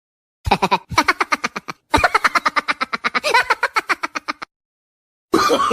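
A laughing sound effect: a rapid, staccato cackle of short pitched pulses, about ten a second, in three runs lasting about four seconds in all. A different sound starts just before the end.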